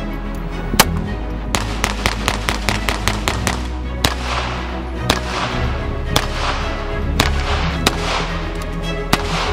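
Volquartsen ENV-9 .22 LR pistol firing over background music: a shot about a second in, then a quick string of rapid shots, then more sharp cracks about once a second.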